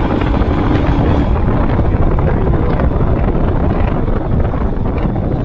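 Wind buffeting the microphone over a Royal Enfield Himalayan's 411 cc single-cylinder engine running steadily while the bike is ridden.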